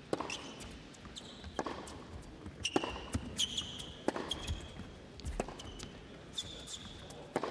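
Tennis rally on an indoor hard court: a racket strike or ball bounce about every second or so, with tennis shoes squeaking on the court surface between the shots.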